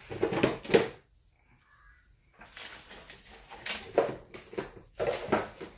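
Clear plastic packaging rustling and crinkling as it is picked up and handled, with a few sharp knocks against the countertop. It goes almost silent for about a second and a half after the first second.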